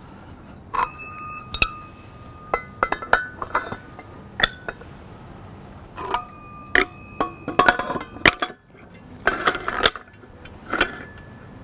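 Metal tripod legs clinking and knocking against the tripod base as they are slid into its recesses: a string of sharp clinks, some ringing briefly.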